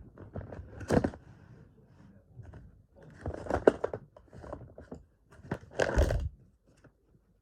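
Handling of a small plastic toy vending machine: clicks, scrapes and rattles in three clusters, about a second in, around three to four seconds in, and near six seconds.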